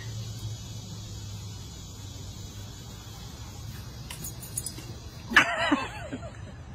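A dog's collar tags and leash jingling as it moves, over a steady low hum, with a short high-pitched cry about five seconds in.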